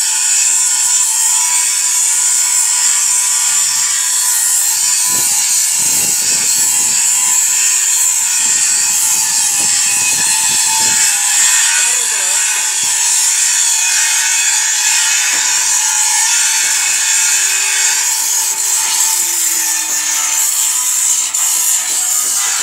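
Steady, loud high-pitched hiss of metalworking in a wrought-iron workshop, with a few faint knocks and rubs around the middle.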